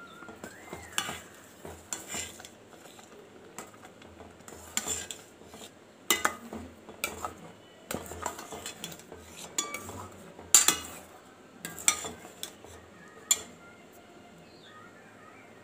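A steel spoon stirring and scraping thick, reducing colostrum milk sweet in a stainless-steel pot, with irregular sharp clinks of metal on metal. The loudest clink comes about ten and a half seconds in.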